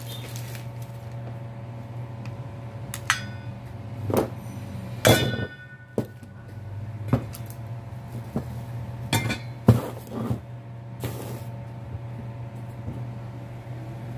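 Metal parts of a ceiling fan motor, its housing and rotor ring, knocking and clinking against each other and the workbench as they are handled: about seven separate knocks, one about five seconds in ringing briefly. A steady low hum runs underneath.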